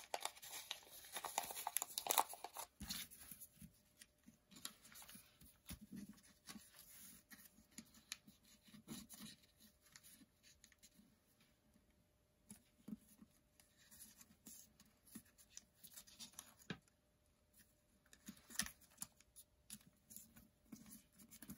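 Thin origami paper crinkling and rustling as a twist-fold tessellation is folded and creased by hand, in scattered soft crackles. They are busiest in the first few seconds and again near the end.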